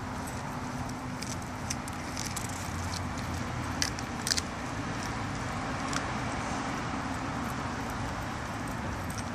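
Doberman chewing a piece of raw chicken carcass. Scattered sharp crunches and clicks, loudest about four seconds in, with his metal chain collar jingling, over a steady low hum of road traffic.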